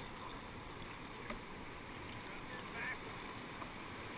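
Steady rush of whitewater around a kayak in creek rapids, with a faint click about a second in.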